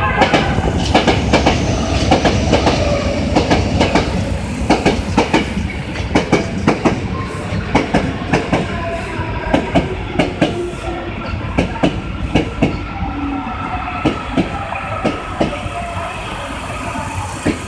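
Kita-Osaka Kyuko 8000 series electric train pulling into the station past the platform. Its wheels clack over the rail joints in a steady rhythm of one or two knocks a second, over a running rumble with a faint whine.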